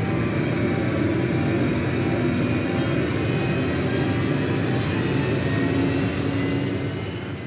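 Robinson R66 helicopter's Rolls-Royce RR300 turbine engine and rotor running on the ground just after startup, heard inside the cabin: a steady turbine whine over dense engine and rotor noise.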